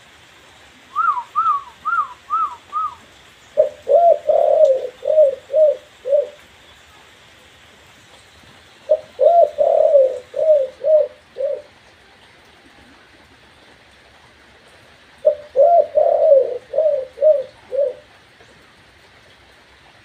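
Spotted dove (tekukur) cooing: three phrases of about six low notes each, some seconds apart, after a quick run of five higher notes about a second in. It is a bird that has only started practising its song, its phrase ending not yet settled.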